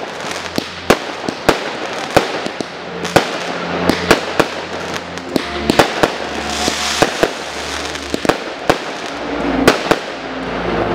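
Fireworks firing in rapid succession: sharp bangs, about one or two a second, over a continuous crackle and hiss of rising comets and bursting stars.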